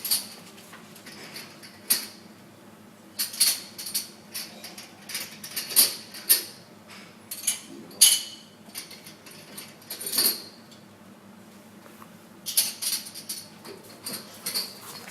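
Drinking glasses clinking and clattering against each other: sharp ringing clinks in irregular clusters every second or two.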